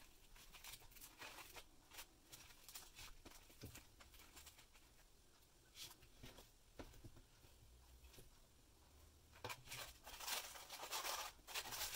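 Faint rustling and small taps of a sheer ribbon and foam sheet being handled as a bow is tied, then louder crinkly rustling near the end as a sheer organza drawstring bag is picked up and opened.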